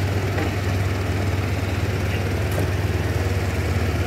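Large truck's engine idling steadily, a low even rumble.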